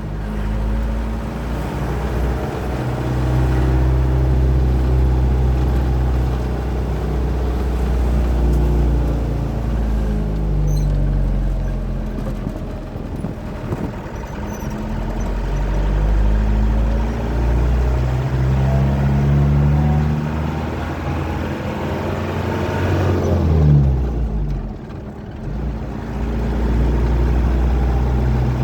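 Light truck's diesel engine running under way, heard as from the truck itself. Its pitch climbs as it pulls and drops back several times as the gears change, with a short quieter dip near the end.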